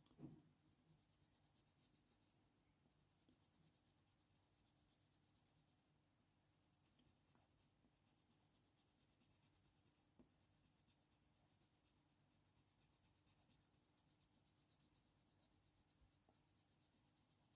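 Very faint, rapid back-and-forth scratching of a Faber-Castell Polychromos coloured pencil shading on hot-press watercolour paper, laying down a cold grey base layer. The strokes ease off for a few seconds about two seconds in, then resume.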